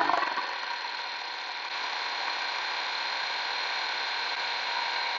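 WORX WG323 20V cordless chainsaw running steadily at full throttle as its chain cuts through a tree branch.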